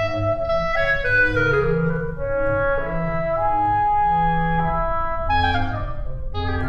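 Background music: a clarinet-like woodwind melody over sustained low orchestral notes, played on sampled instruments.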